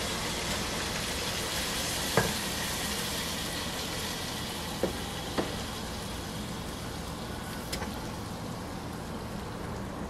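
Hot stir-fried green beans sizzling steadily in a wok as a spatula pushes them out onto a plate, with a few light clicks of the spatula against the pan.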